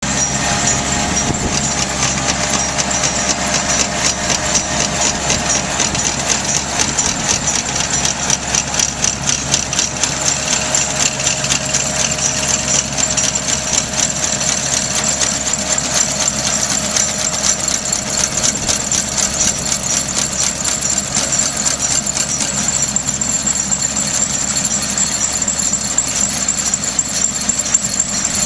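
Tractor engine running under load while a Turf Pride DSA-7000 deep-tine aerifier punches its coring tines into turf, a rapid, steady mechanical clatter.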